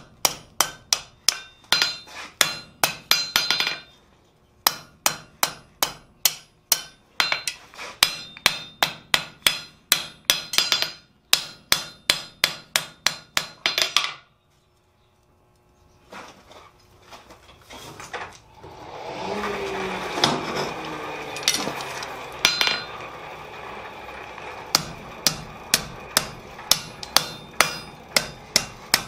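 Hand hammer striking red-hot steel tong jaws on an anvil, about three ringing blows a second with short pauses. About halfway through the hammering stops and a steady rushing noise takes over for several seconds before the blows start again near the end.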